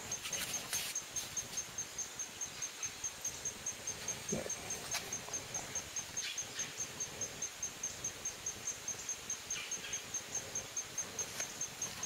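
A high-pitched insect chirp repeating steadily at about five pulses a second, with a few faint clicks.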